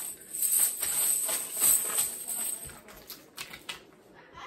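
Rustling and crinkling of gift packaging and items being rummaged through by hand, with many small clicks and ticks. It is loudest for the first three seconds, then thins to a few soft ticks.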